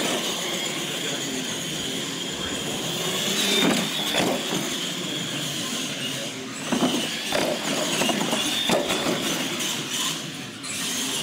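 Radio-controlled monster truck driving on a concrete floor: a steady high whine of its motors and gears that rises and falls with the throttle, with a few knocks as it runs over the track.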